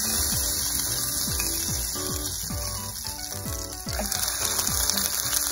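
Background music with a steady beat over a hamburger patty sizzling in garlic oil in a frying pan.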